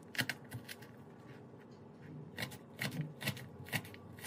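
Kitchen knife chopping a red onion on a plastic cutting board: a run of quick taps on the board, about two to three a second, easing off for a second or so in the middle and then picking up again.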